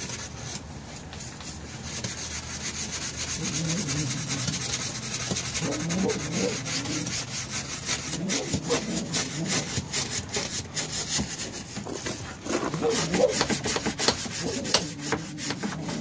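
Small stiff brush scrubbing a stained vinyl seat, rapid back-and-forth strokes rasping over the textured vinyl.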